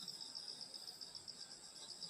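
Crickets and other grass insects chirring steadily on a summer night. A high, rapidly pulsing trill sits under a continuous higher-pitched drone.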